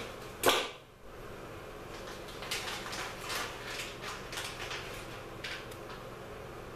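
Hand tools working on small-gauge automotive wire: a sharp snap about half a second in, then a run of short scraping and clicking handling sounds from about two seconds in until shortly before the end.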